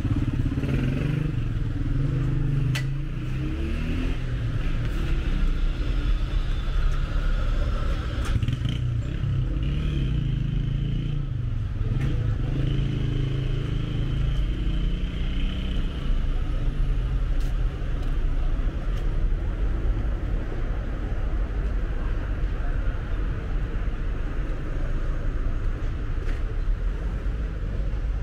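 Street traffic: cars and motorcycles running and passing, a steady low rumble with a few faint clicks.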